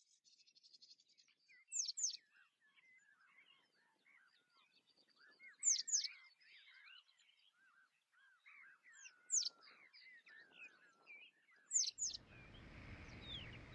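Wild birds singing: a chorus of short chirps and warbles, cut through every few seconds by one bird's loud pair of sharp falling whistles. A rushing noise swells near the end.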